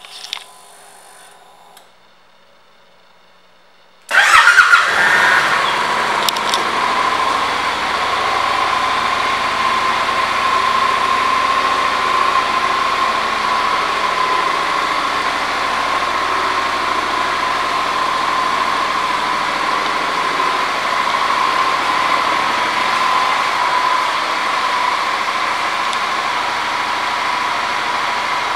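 A 2015 Honda NM4's 745 cc parallel-twin engine starts suddenly about four seconds in, flares briefly, then settles into a steady idle.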